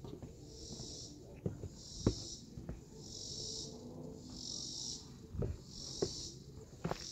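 Insects singing in a pulsing chorus, a high buzz swelling and fading about once a second, with a few footsteps of someone walking along a trail.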